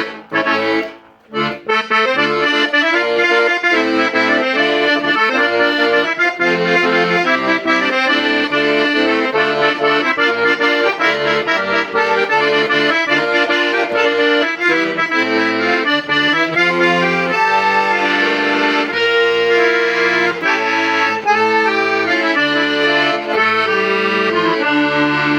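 Hohner Concerto III N accordion being played: a tune on the treble side over a stepping bass line. The playing breaks off briefly about a second in, then runs on steadily.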